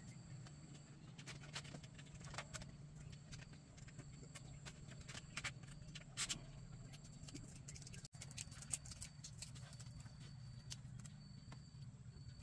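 Faint, irregular clicks and rustles of dry bamboo strips being handled and wrapped around a bamboo frame joint, over a steady low hum.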